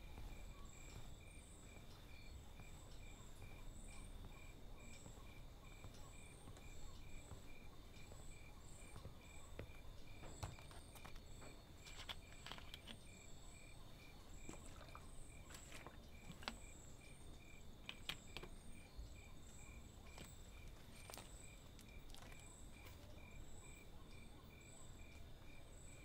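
Faint night ambience of crickets chirping in an even, repeating rhythm, with higher irregular insect chirps over it and a few faint clicks.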